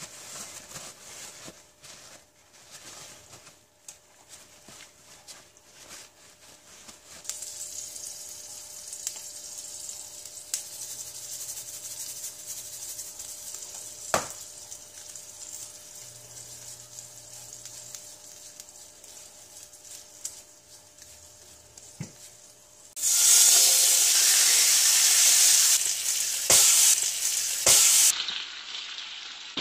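Paper towel crinkling as raw chicken thighs are patted dry, then a faint steady hiss with a few sharp clicks. After about twenty-three seconds a loud, steady sizzle starts suddenly as the salted chicken thighs are laid skin side down on the hot griddle, and this is the loudest sound.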